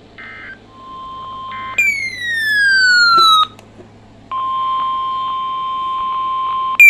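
Emergency Alert System signalling: two short buzzy digital data bursts, then electronic tones, with a steady tone near 1 kHz and two loud falling sweeps, the second starting near the end.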